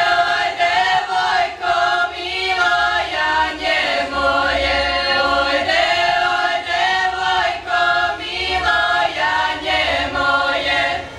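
A small group of women's voices singing a Croatian folk song together, unaccompanied, in long held notes; the singing ends near the end.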